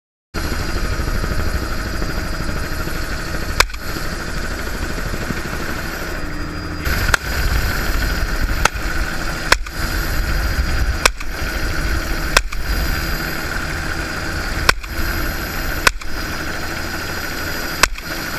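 Bell Ranger helicopter's turbine and rotor running steadily through an open door, with a 12-gauge shotgun firing buckshot about eight times at irregular intervals of one to two and a half seconds.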